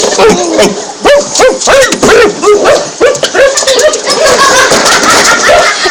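Loud, rapid barking and yelping, each yelp rising and falling in pitch, about two or three a second, running together into wavering calls near the end.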